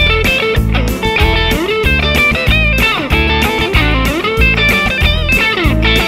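Fender Telecaster with Tonerider Hot Classics Alnico 3 pickups playing a single-note blues lead through an amp, with frequent string bends. A backing beat pulses steadily underneath.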